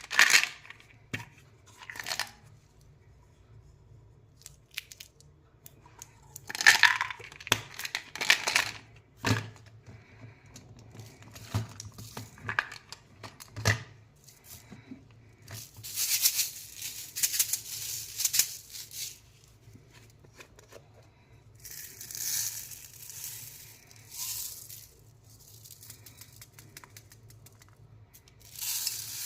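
Plastic candy packaging being torn open and crinkled by hand, in irregular bursts with sharp clicks and rattles between them.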